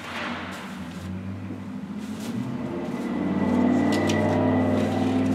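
Background music fading in: low sustained notes that shift about once a second.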